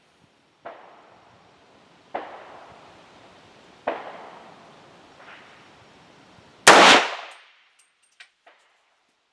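A single very loud rifle shot from a 300 Blackout AR-15 about two thirds of the way in. Before it come three fainter gunshots about a second and a half apart, and after it two light clinks.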